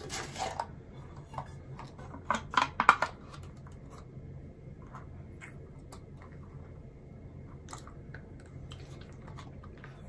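A sweets packet being handled and opened, crinkling and clicking in short bursts at the start and again about two to three seconds in. After that only a few faint clicks are heard.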